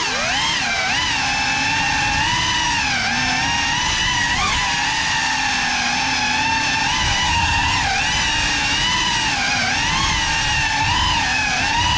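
GEPRC Cinelog 35 cinewhoop's four motors and ducted propellers whining, heard from the drone's own onboard camera, the pitch rising and falling with the throttle as it flies. There is a quick throttle blip about four and a half seconds in.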